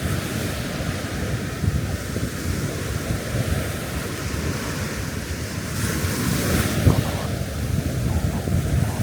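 Surf breaking on a beach under heavy wind buffeting the microphone; the hiss of a wave washing up swells about six seconds in.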